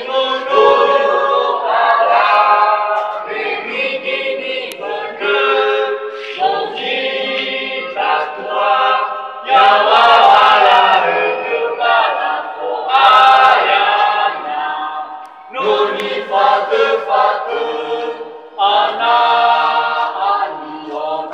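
A choir singing, phrase after phrase with short breaks between them.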